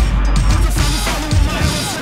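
Loud music with a deep sustained bass note and a drum beat. The bass drops away about two-thirds of the way through.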